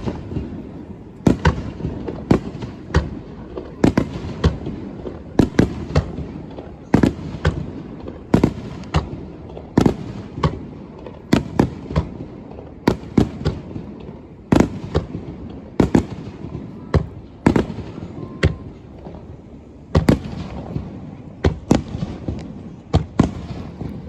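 Fireworks display: aerial shells going off in quick succession, sharp booms several to a second at times, each ringing out in a short echo, over a continuous rumble of further bursts.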